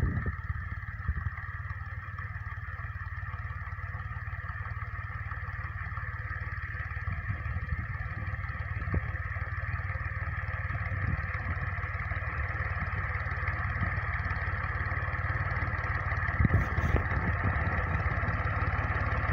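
Farm tractor's diesel engine running steadily under load as it pulls an implement across a ploughed field, slowly growing louder as it approaches, with a brief clatter near the end.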